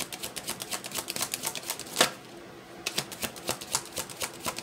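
A deck of cards being shuffled in the hands: a rapid run of crisp card clicks and slaps, with one louder snap about two seconds in and a short pause before the shuffling starts again.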